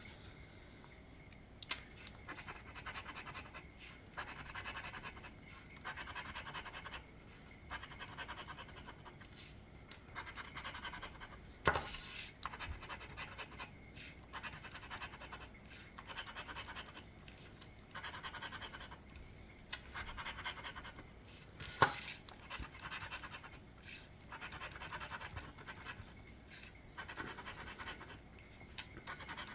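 A lottery scratch-off ticket being scratched: short spells of scraping strokes, one after another with brief pauses, as the latex coating is rubbed off. Two sharp clicks stand out, about twelve seconds in and again about ten seconds later.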